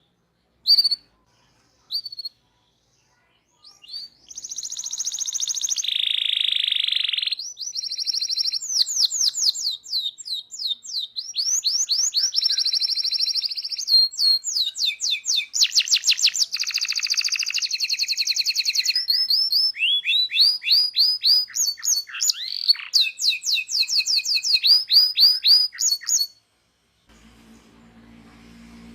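Domestic canary singing a long, varied song of rapid rolling trills, repeated sweeping notes and held notes, after two short chirps at the start. The song cuts off abruptly near the end, leaving a faint low hum.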